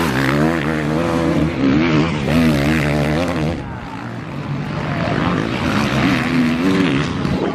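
Motocross bike engine revving hard as it passes close, its pitch rising and falling with throttle and gear changes. After about three and a half seconds it gives way to quieter engines of several bikes revving further off around the dirt track.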